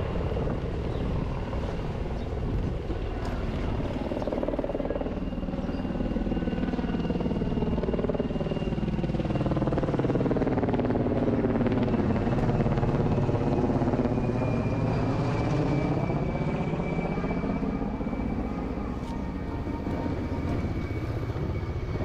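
An aircraft, most likely a helicopter, passing overhead: a steady engine and rotor hum that swells to its loudest about halfway through and then fades.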